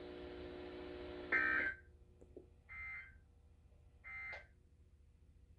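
Emergency Alert System end-of-message data bursts: three short, buzzy digital tones about a second and a half apart, the signal that closes the alert broadcast. They are preceded by about a second of steady low hum.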